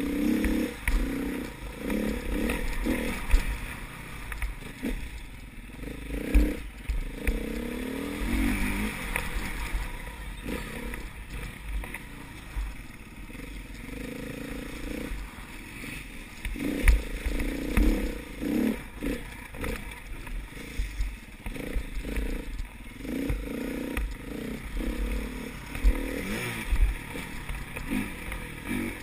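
Enduro dirt bike engine heard from on board, revving up and down over and over as the throttle opens and closes through the course, with repeated knocks and rattles from the bike over rough ground and wind rumble on the microphone.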